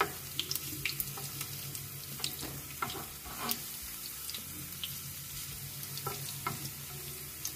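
Sliced garlic sizzling in hot oil in a non-stick frying pan as it fries toward golden brown, with irregular light clicks and scrapes of a utensil stirring it.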